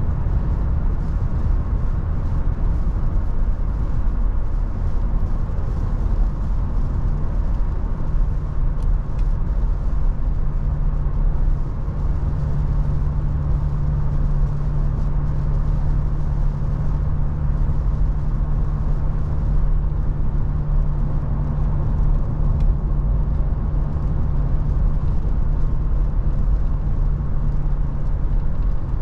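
Toyota FJ Cruiser's 4.0-litre V6 and road noise while driving: a steady low drone with an engine hum that grows a little stronger about twelve seconds in.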